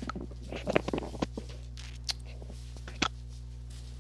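Steady low hum with a few short clicks and soft noises: a cluster about a second in and one sharp click about three seconds in.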